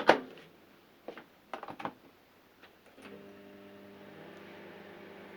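Microwave oven door latching shut with a loud click, a few quieter clicks from the controls, then about three seconds in the oven switches on and runs with a steady hum from its transformer and magnetron, heating water as a test after a burnt waveguide cover plate was replaced.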